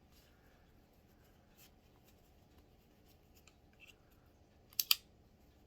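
Small handling sounds while a cleaned revolver is wiped down: faint rubbing and light ticks, then two sharp clicks in quick succession near the end.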